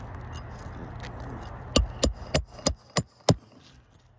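Six sharp hammer blows in quick succession, about three a second, driving a roofing nail during a three-tab shingle repair.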